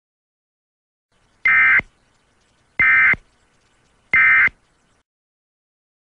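Emergency Alert System end-of-message signal: three short, identical bursts of SAME digital data tones, a little over a second apart. The three bursts mark the end of the alert message.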